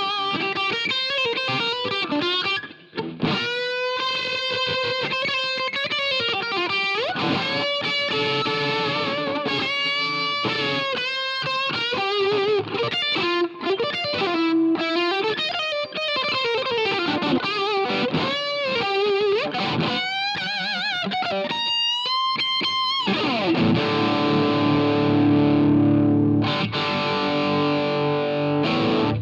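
Electric guitar with mild overdrive through a Jeds Peds Klone, a Klon Centaur-style overdrive pedal, playing single-note lead lines with string bends and vibrato. The lines give way to sustained, ringing chords in the last few seconds.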